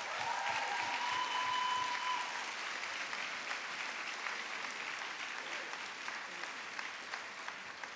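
Large seated audience applauding, the clapping tapering off gradually. One long high call from someone in the crowd rises above it near the start.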